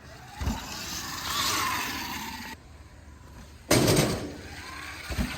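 Sur-Ron electric dirt bike ridden over a dirt jump: a faint motor whine that rises and falls over tyre and riding noise, with a sudden loud burst a little under four seconds in.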